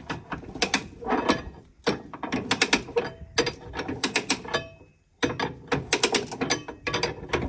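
Ratchet strap being cranked tight to tie down a load: bursts of quick ratcheting clicks, with a short pause about five seconds in.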